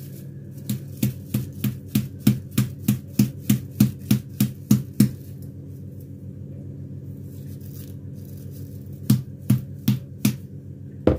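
Repeated knocks, about four a second for some four seconds, then a few more after a pause: meat packed into a bag being tapped down so that it settles evenly.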